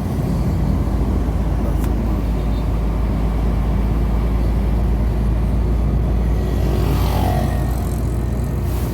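Semi-truck engine droning steadily with road noise, heard from inside the cab while driving. A brief tone falling in pitch comes about seven seconds in.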